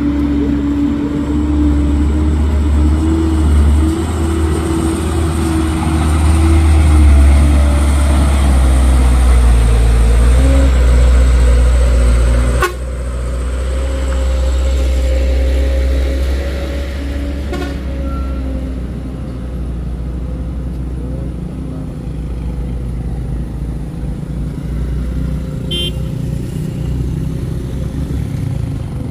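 Diesel dump truck engines labouring uphill on a rough gravel road, loudest as one passes close. The sound drops suddenly about 13 s in and lighter traffic follows.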